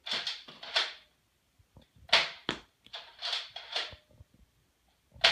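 Nerf Zombie Strike Doominator, a pump-primed spring dart blaster, being primed and fired again and again: four clusters of sharp clacks and pops, each dying away quickly.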